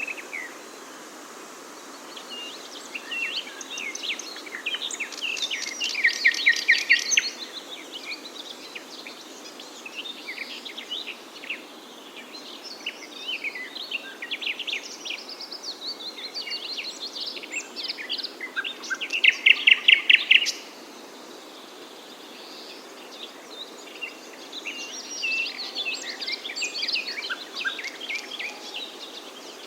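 Several songbirds chirping and singing over a steady background hiss, with a loud rapid trill about six seconds in and another about twenty seconds in.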